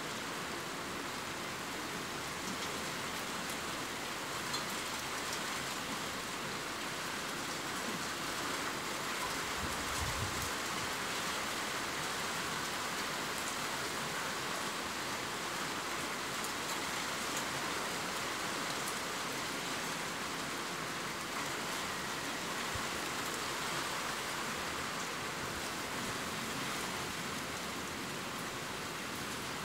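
Steady rain falling, an even hiss of many drops that holds at the same level throughout.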